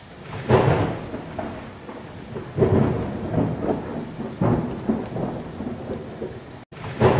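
Thunderstorm sound effect: thunder rolling in swells every couple of seconds over steady rain.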